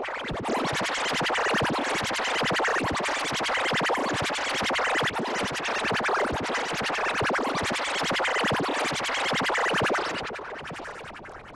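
Heavily distorted, effects-processed audio that sounds like electronic music with a rapid scratching stutter. It fades down somewhat near the end.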